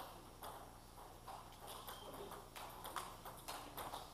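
Table tennis balls clicking off bats and tables in rallies, a quick, irregular series of sharp clicks, with a short high squeak about halfway through.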